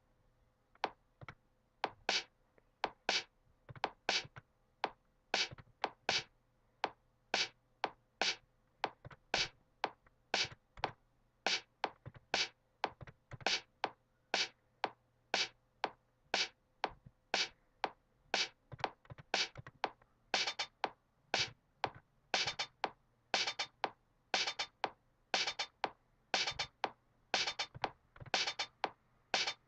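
Audiotool Machiniste drum machine looping a programmed pattern of one-shot drum samples, about two short, sharp hits a second, mostly crisp and high like a hi-hat. Some hits reach lower like a kick or snare. About two-thirds of the way in, extra hits fill in between the beats.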